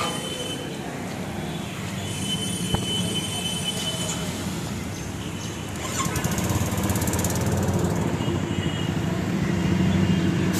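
A motor vehicle engine running steadily, growing louder about six seconds in, with a faint high squeal in the first few seconds.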